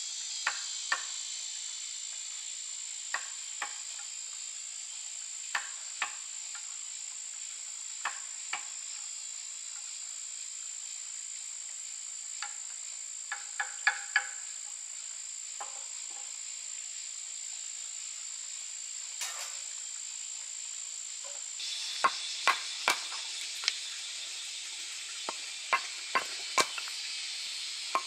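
A steady, high-pitched insect chorus runs throughout, widening and growing fuller about two-thirds of the way in. Over it come scattered sharp knocks of a tool working wood, single or in quick clusters, coming more often near the end.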